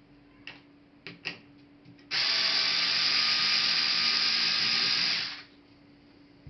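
A few small clicks, then a steady mechanical ratcheting whirr for about three seconds that stops fairly sharply, from a small hand tool being worked on the laptop.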